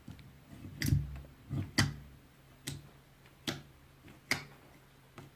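A series of light, sharp clicks, about one a second, a few of them with a soft thump underneath, over a faint low hum.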